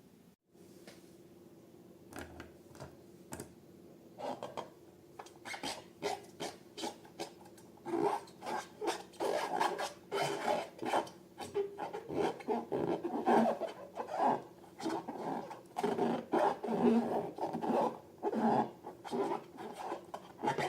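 Slime being mixed and squished by hand: irregular squelching and rubbing strokes, sparse at first and coming thick and fast from about four seconds in.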